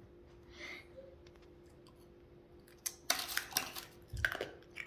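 Sharp cracks and crunches of hard dalgona sugar candy being bitten and snapped, in a quick cluster about three seconds in and another just after four, following a quiet stretch.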